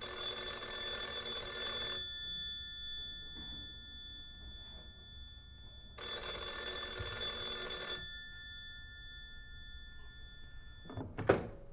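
Old black desk telephone's bell ringing twice, each ring about two seconds long with the bell tones hanging on as it fades, about four seconds apart. Near the end, a short sharp clatter as the handset is lifted.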